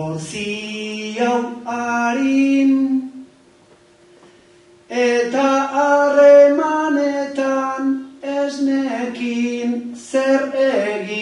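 A bertsolari singing an improvised Basque verse (bertso) unaccompanied, one man's voice holding long notes phrase by phrase, with a pause of about a second and a half partway through between lines.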